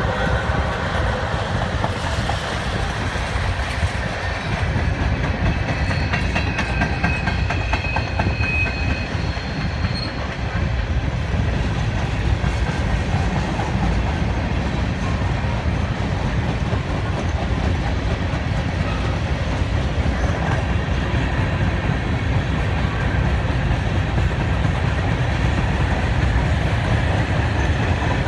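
Freight train cars rolling past: a steady low rumble of steel wheels on rail with a clickety-clack over the rail joints. A thin, high wheel squeal rides over it from about six to ten seconds in.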